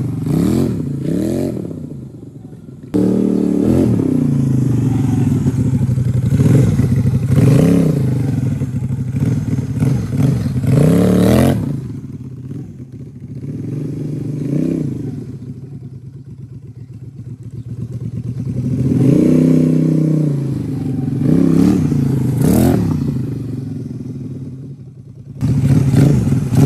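Scooter engine converted into a home-built 250cc L-twin, revving again and again, its pitch rising and falling with each blip of the throttle. Partway through it fades as the scooter rides away, then grows louder as it comes back.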